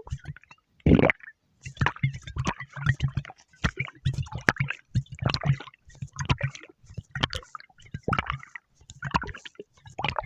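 A person's stomach gurgling and growling in a run of short, irregular rumbles, with one louder growl about a second in.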